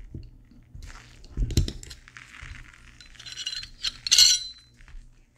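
Metal parts of a Glock pistol clinking and scraping as the slide is handled and taken apart: small clicks, a dull knock about one and a half seconds in, a stretch of scraping, then a loud sharp metallic clack a little after four seconds.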